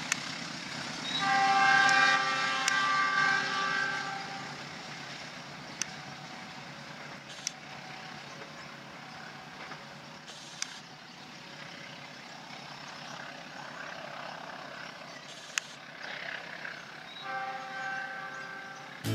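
Diesel locomotive horn sounding a long blast of about three seconds, then a shorter blast near the end, from a passenger train running away down the line. Between the blasts the train's wheels rumble on the track, with a few sharp clicks.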